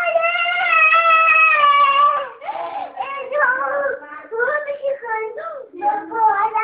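A young child singing without clear words, holding one high note for about two seconds, then a run of shorter, wavering notes.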